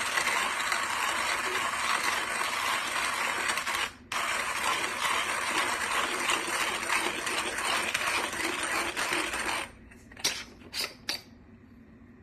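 Burr coffee grinder crushing coffee beans, a steady gritty grinding that stops briefly about four seconds in, then runs on and cuts off near the three-quarter mark. A few sharp clicks follow just after it stops.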